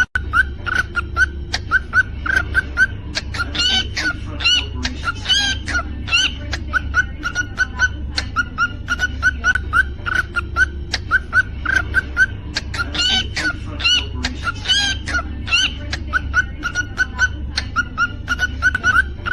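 Cockatiel chirping in short, even calls, two to three a second, with bursts of higher whistled song twice, about four seconds in and again about thirteen seconds in. A steady low hum runs underneath.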